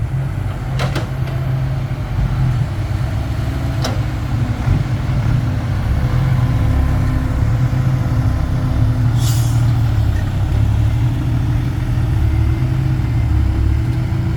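Heavy diesel machinery running steadily while an excavator loads soil into a dump truck. A couple of sharp knocks come about one and four seconds in, and a brief hiss about nine seconds in.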